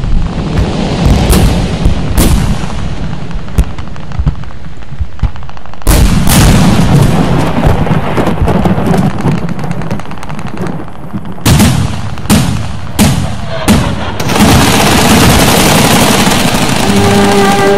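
Battle sound effects: a series of heavy shots and explosions, cannon fire among them, with a low rumble between the blasts. A few seconds before the end a steady rushing noise takes over, and brass music comes in at the very end.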